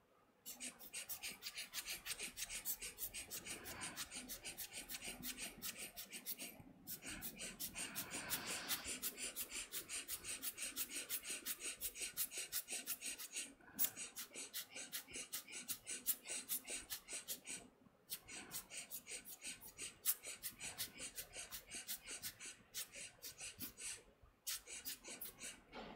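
Air blower puffing dust off a laptop motherboard chip without touching it, in fast, regular faint puffs about five a second, with a few short pauses.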